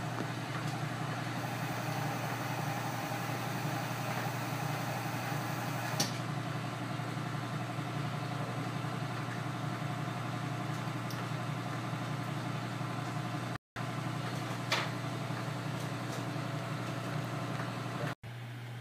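BGA rework station running steadily through a reflow cycle: a constant low machine hum with a rushing of air above it and a couple of faint ticks.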